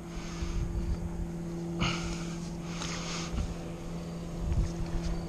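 A steady low engine drone, like an outboard motorboat running some way off, under wind rumbling on the microphone. Two short splashy rushes come about two and three seconds in, as the hooked flathead is drawn through the shallow water.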